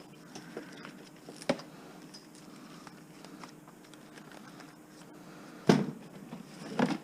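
Motorized commercial wire stripper running with a faint steady hum as copper wire is fed through it. A few sharp clicks and knocks from the wire and machine, the loudest about six seconds in.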